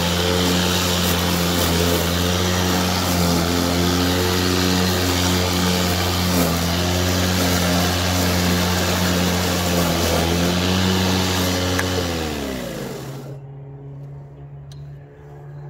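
Ego 56V Select Cut battery-electric mower running under load with its twin premium bagging blades: a steady hum over a rushing noise. About twelve seconds in it is switched off and the blades spin down, the hum falling in pitch and fading.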